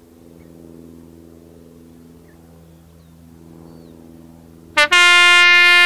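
Class 66 diesel locomotive's engine running with a low, steady drone as it approaches, then its horn sounds near the end: a brief toot followed at once by a long, loud single-note blast.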